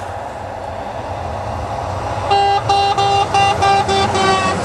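Semi-trailer truck approaching, its engine and tyre noise growing louder, then its horn sounding a quick run of about eight short toots, roughly four a second, as it passes. The driver is honking in answer to a hand signal asking him to.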